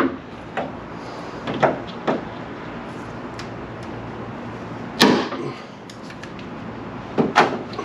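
Sharp clicks and knocks of a tool and plastic retainer clips being worked loose from the underside of a car's hood to free the stock hood scoop. The loudest knock comes about five seconds in, and two quick ones come near the end.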